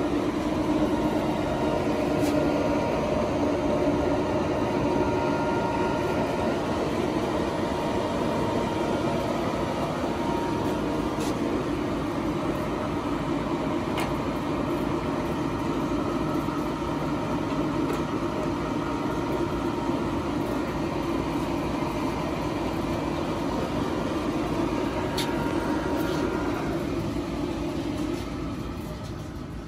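A 2006 Summit 24 x 120 engine lathe running under power, with a steady whine from its headstock gearing and a few sharp clicks. Near the end it winds down as the machine is switched off.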